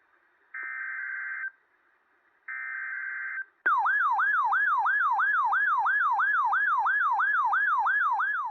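Emergency Alert System alert: the last two one-second data bursts of the digital header, a buzzy electronic screech, then a loud siren-like attention tone that sweeps up and down about three times a second.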